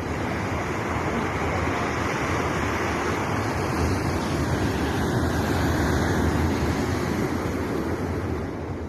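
Steady rushing of wind and breaking surf, with wind buffeting the microphone.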